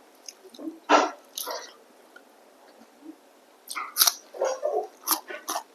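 Close-miked eating sounds: irregular wet smacks, clicks and chewing of chicken, sparse at first and coming thick and fast from a little over halfway through.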